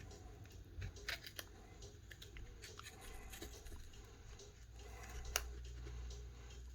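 Faint, scattered small clicks and light scraping of a plastic pry tool working around a cracked smartphone's glass and frame, over a steady low hum.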